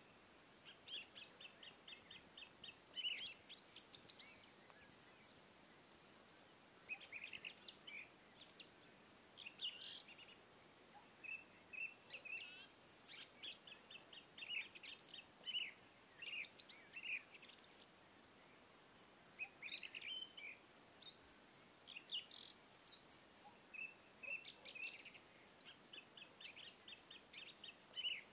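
Birds chirping and trilling in quick bouts of repeated high notes, with short pauses between bouts: a recorded birdsong background track.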